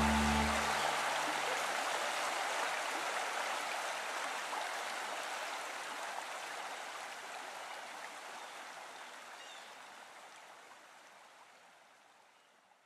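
Running water of a stream, an even rushing babble, fading out slowly to silence; the last held notes of a song die away in the first second.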